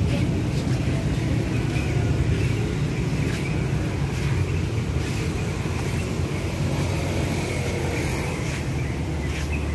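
Steady low rumble of city street ambience, with road traffic in it.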